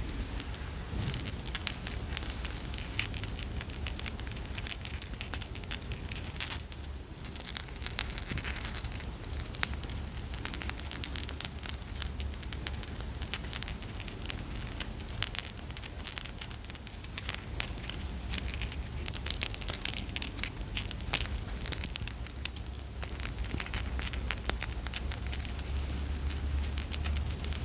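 Reindeer antler necklace handled close to the microphone: a dense, irregular run of small clicks and clatters as the antler piece is tapped and rubbed, pausing briefly about seven seconds in.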